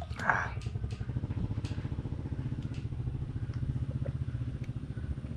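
A small engine idling steadily with a fast, even pulse. At the start, a short splash of a thick drink poured from a plastic bottle into a gourd bowl.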